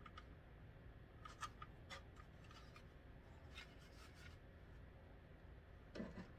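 Faint scattered clicks and a brief rub near the end as hands work the plastic toolhead cover and parts of a 3D printer's print head.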